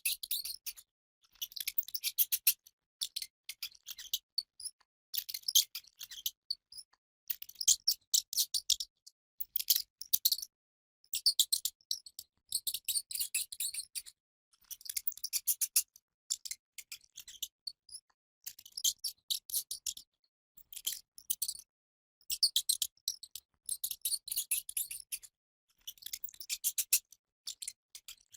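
Rat noises: bouts of rapid, high-pitched clicking chatter, each about a second long, repeating every couple of seconds with silent gaps between.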